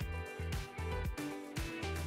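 Background music with a steady beat over a deep bass.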